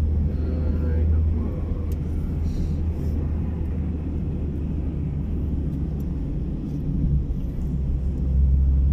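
Steady low rumble of engine and road noise inside a moving Hyundai Accent's cabin.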